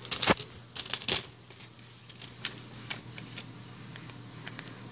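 Small plastic toy capsule from a chocolate surprise egg clicking as it is handled and pried open: a quick cluster of sharp clicks in the first second or so, then a few single clicks.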